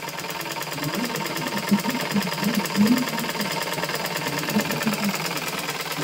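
Black treadle sewing machine running steadily, its needle stitching cloth with a rapid, even clatter.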